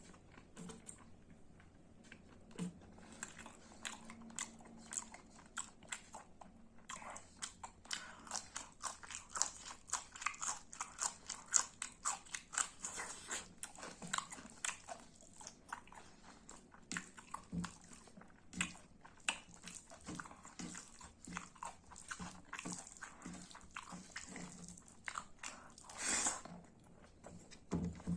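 Close-up mouth sounds of a person chewing and crunching pork and boiled vegetables: a run of wet clicks and crunches that gets busy about a quarter of the way in, then eases off. A brief louder noise comes near the end.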